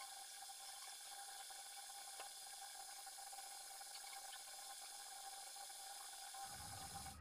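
Thalipeeth frying in oil on a hot tawa, sizzling faintly and steadily.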